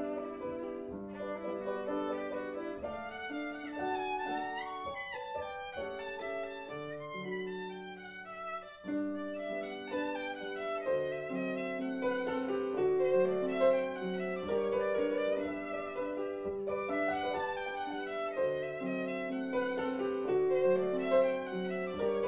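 Musical score for a silent film, led by a violin playing a continuous flowing melody.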